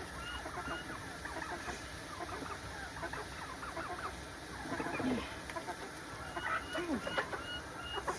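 A flock of hens clucking, many short overlapping calls.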